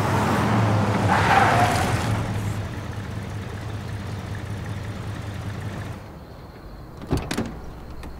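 SUV driving up and coming to a stop, its engine hum dying away, then the car door unlatching with two sharp clicks about seven seconds in.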